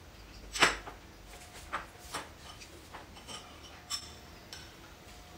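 Metal spoon clinking against a small bowl during eating: a scatter of short, light clicks, the loudest about half a second in.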